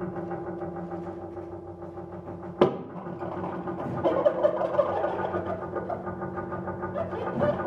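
Free-improvised music for double bass and amplified gear: a steady, many-toned drone with one sharp click about two and a half seconds in. From about four seconds in, a grittier, scraping layer joins on top.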